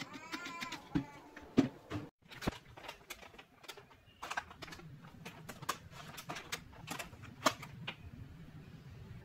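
A few sharp knocks and clicks from wooden crossbow strips and a small metal part being fitted together, the loudest about one and a half seconds in. Then a soft plastic wet-wipe pack crinkling in the hands, with a string of sharp plastic clicks.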